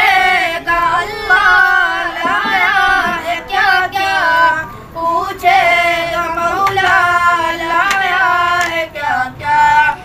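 A naat, an Islamic devotional song: a high voice sings drawn-out, ornamented phrases that waver and glide in pitch, with short breaths between them.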